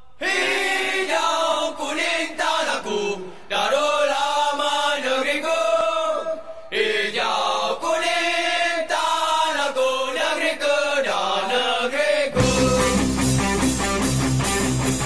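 Background music: voices singing a chant-like melody in phrases with short breaks, then about twelve seconds in a rock band with guitar comes in underneath.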